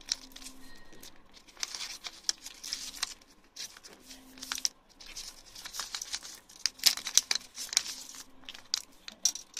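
A sheet of paper being folded and creased by hand, pressed flat against the table, with irregular crinkling and rustling.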